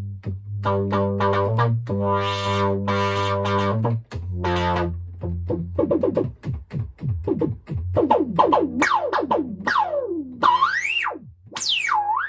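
Minimoog synthesizer playing a run of buzzy bass notes; about halfway through, its resonant filter cutoff knob is swept up and down, giving whistling sweeps that rise and fall over the notes.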